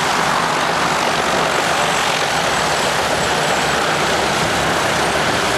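Junkers Ju 52 trimotor's radial engines running on the ground, propellers turning: a loud, steady engine noise that holds without change.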